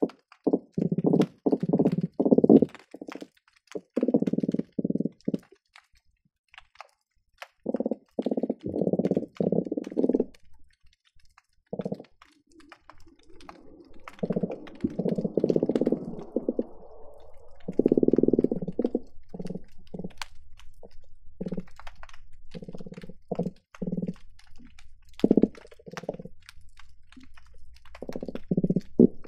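Croakers calling underwater, heard through a hydrophone: repeated bouts of low, rapid grunting pulses, each lasting about half a second to two seconds, with faint sharp clicks scattered between them.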